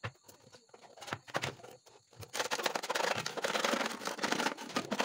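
A clear plastic bottle being handled and scratched into with a sharp point. First come scattered light clicks and taps; then, about two seconds in, a louder, dense crackling scrape of the point against the plastic.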